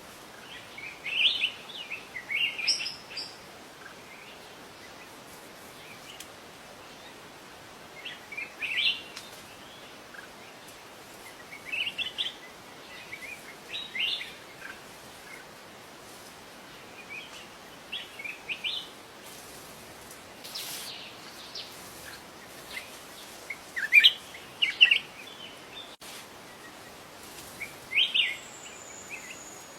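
A bird singing short chirping phrases every few seconds, over a steady background hiss.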